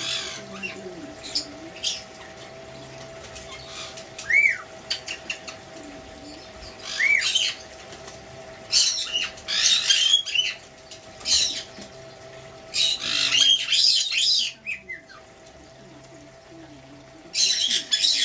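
Small parrots giving short whistled chirps over the trickle of small bird-bath fountains, with three longer spells of splashing and wing-flapping as a white-bellied caique bathes, about nine, thirteen and seventeen seconds in.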